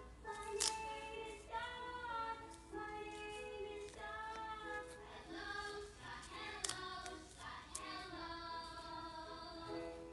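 Background song with a high singing voice holding and sliding between notes, with a few sharp clicks.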